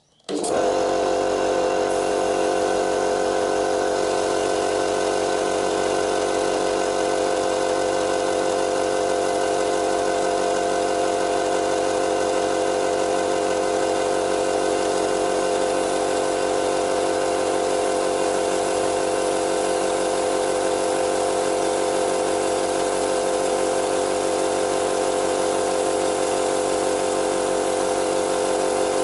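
Air compressor switched on about half a second in, its motor and pump then running steadily.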